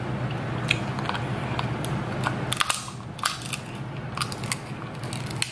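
Thick king crab leg shell cracking and crunching as it is pried open: a run of sharp cracks and clicks, thickest about halfway through and again near the end. The shell is hard to open.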